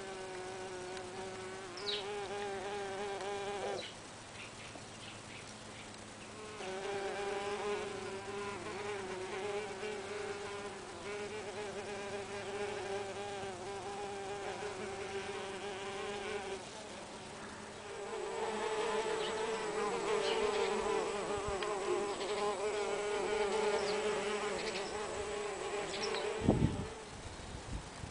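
Mason bees buzzing in flight around their nesting tubes, one steady buzz that fades out twice and comes back. A few sharp knocks near the end.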